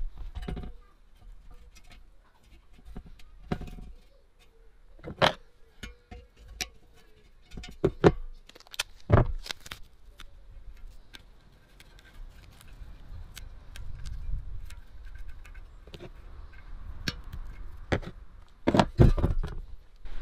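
Irregular clicks, clinks and knocks of hands working on the fuel tank of an old steel flame gun and its small metal fittings, with the sharpest knocks about midway and again near the end.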